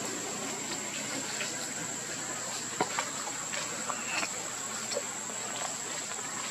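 Outdoor ambience: a steady high-pitched whine over a soft hiss, with a few sharp clicks and light rustles, like macaques stepping on dry leaf litter, and a short squeak a little after four seconds.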